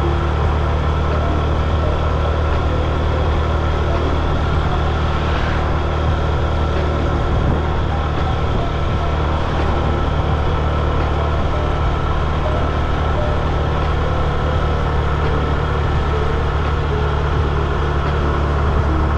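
Steady car engine and road noise from a vehicle being driven, a constant low rumble with even hiss above it.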